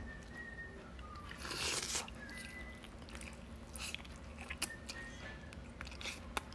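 Close-up mouth sounds of biting into a saucy braised chicken drumstick and chewing it, with scattered short wet clicks and a brief noisy burst a little under two seconds in.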